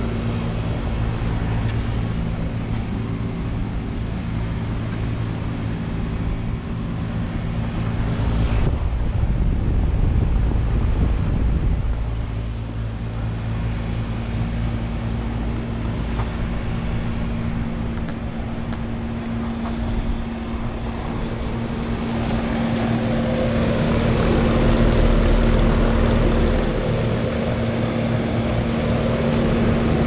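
Vintage Carrier 38BA central air-conditioner condensing unit running: a steady compressor hum under the rush of its condenser fan. A louder rushing stretch comes about nine seconds in, and about two-thirds of the way through the sound changes, with more fan noise and a new, higher hum.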